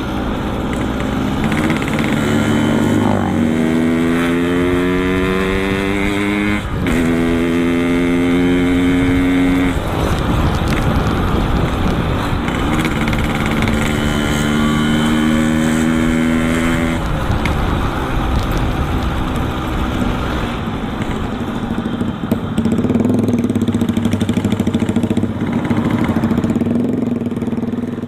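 Yamaha RX-King two-stroke single-cylinder motorcycle running through a Boban C33 aftermarket exhaust while being ridden. The engine note rises as it accelerates, drops sharply at a gear change about seven seconds in, climbs again, climbs once more in the middle, and settles to a steady note near the end.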